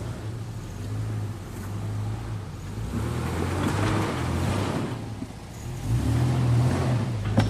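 A four-wheel-drive's engine running under load on rough off-road ground, its note rising and falling with the throttle and getting louder about six seconds in.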